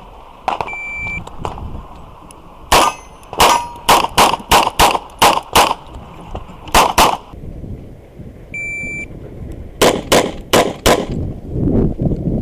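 Rapid 9 mm pistol fire from a Tanfoglio Stock 3: a fast string of about a dozen shots, a pause, then another quick string of about six shots near the end. Two short high electronic beeps from a shot timer, one just after the start and one about nine seconds in.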